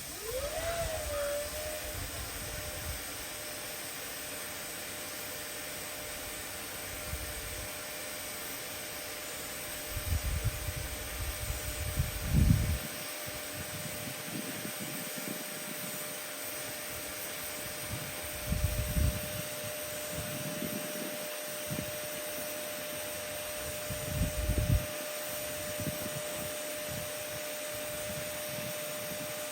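TIG welding arc running on carbon steel while stacked fillet beads are laid with ER70S-6 filler rod: a steady hiss with a faint steady whine. A few low rumbling bumps come and go.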